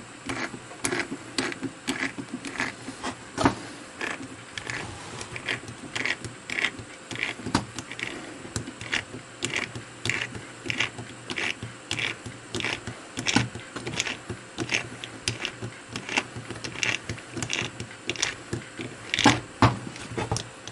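A small 100 mm three-jaw lathe chuck's scroll being wound open with a T-handle chuck key, backing the jaws out. It gives a run of short metallic clicks and ticks, irregular at about one to three a second.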